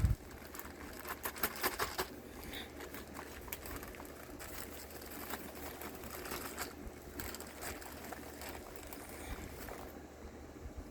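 Hands rummaging through small items such as military buttons and medals: light clicks and rattles, densest in the first two seconds and scattered after, over a low steady hum.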